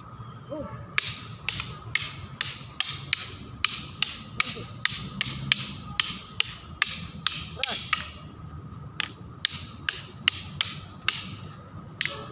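Hand-held fighting sticks clacking against each other in a Filipino stick-fighting drill: sharp wooden strikes about two a second in a steady rhythm, starting about a second in, with a brief pause about eight seconds in.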